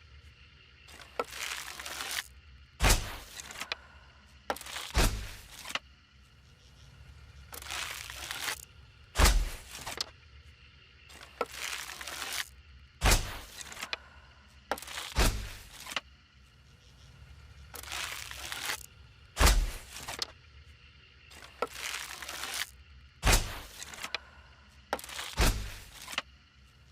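A series of bow-and-arrow shot sound effects: short noisy rushes and sharp hits with a deep thud, repeating every one to three seconds, about ten strong hits in all.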